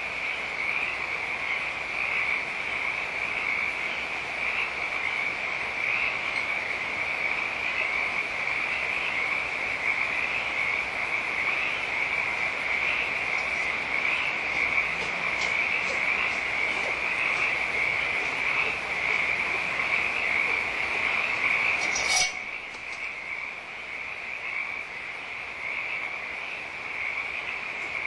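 A dense, continuous chorus of high, pulsing animal calls. About 22 seconds in there is a sharp click, after which the chorus is somewhat quieter.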